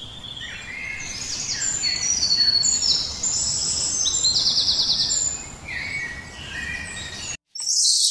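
Several small birds chirping and whistling, many short phrases overlapping, with a fast trill about four seconds in. Near the end the birdsong breaks off and a squirrel monkey gives a loud, shrill, very high call.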